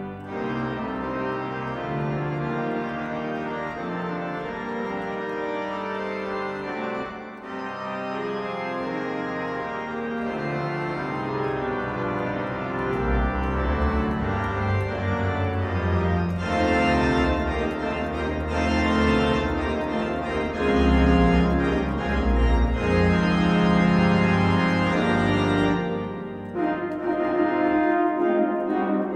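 Digital organ playing sustained hymn-style chords with sampled cathedral pipe-organ sound. Deep bass comes in about halfway through, the tone then grows brighter and louder, and a short dip comes shortly before the end.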